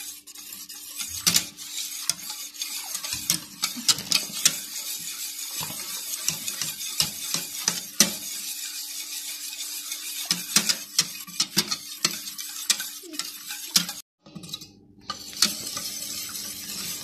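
Wire whisk beating milk and cornflour in a stainless steel pot. Quick, irregular clinks of the wires against the metal sides ride over a steady wet swishing, with a short break about fourteen seconds in.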